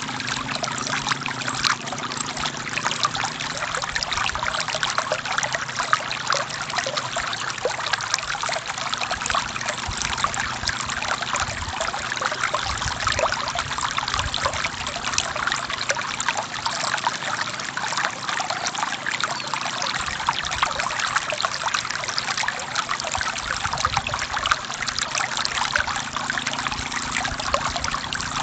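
Forest stream flowing over rocks: a steady, dense trickling and splashing of running water.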